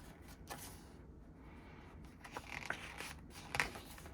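Faint rustling and a few light taps of paper and card as an album's photobook pages and inclusions are handled, with the loudest tap about three and a half seconds in.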